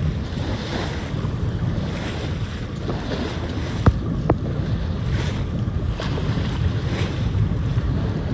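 Wind buffeting the microphone over water rushing past the hull of a sailing yacht under way, with two short knocks about four seconds in.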